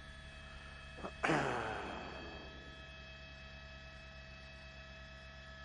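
Steady electrical mains hum in the recording, broken a little over a second in by one sudden short sound that falls in pitch and dies away within about a second.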